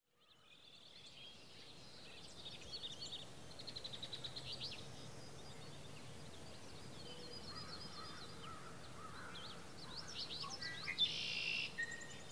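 Birds chirping and trilling over a faint outdoor background, fading in at the start, with a louder harsh call near the end.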